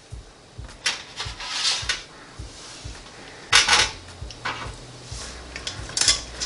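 Kitchen tongs scraping and knocking in a stainless steel pressure-cooker pot as cooked beef back ribs are lifted out and set on a wire air fryer basket: a few short clattering scrapes, the loudest about three and a half seconds in.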